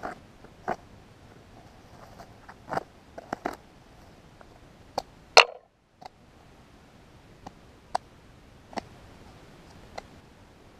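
Sharp cracks and crunches, a dozen or so at irregular intervals, as a length of cane is cut and scraped with a sharp stone flake to make a hand-drill spindle; the loudest crack comes about halfway through.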